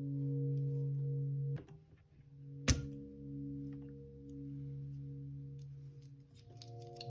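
Soft background music of sustained low held notes that change near the end, with one sharp click about two and a half seconds in and a fainter one shortly before.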